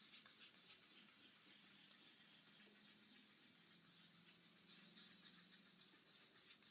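Faint, repeated rubbing strokes of wet 1000-grit sandpaper over the lacquer finish of a guitar body, with a faint steady hum underneath.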